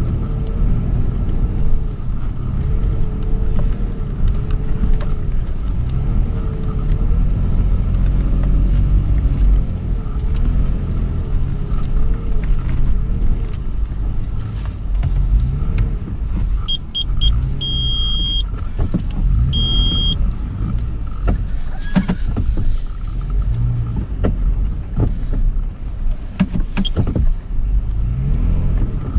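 A 2013 Toyota 4Runner's 4.0-litre V6 heard from inside the cabin, driving over sand dunes: a steady low rumble, with the engine note rising and falling as the throttle changes. A few short electronic beeps sound just past the middle, and knocks and rattles from the body follow near the end.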